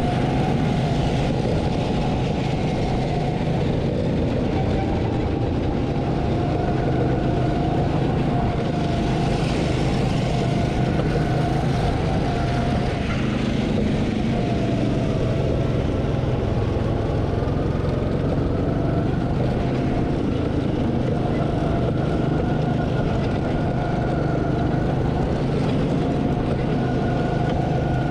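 Small gasoline go-kart engines running continuously under way, the engine pitch wavering up and down as speed changes.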